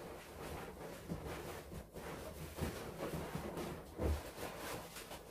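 Soft handling noise of latex balloons being pressed and wrapped onto a metal hoop: irregular light rubbing and small knocks, with a louder low thump about four seconds in.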